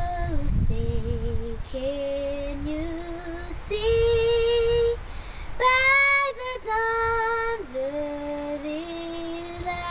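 A young girl sings the national anthem solo and unaccompanied into a handheld microphone, in slow, long-held notes.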